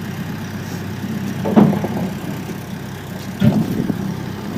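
Homemade mini tractor engine idling steadily, with two short knocks over it, one about a second and a half in and another near three and a half seconds.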